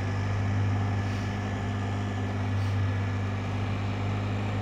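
Can-Am Spyder three-wheeled motorcycle's engine running steadily while riding, a low even hum with road and wind noise.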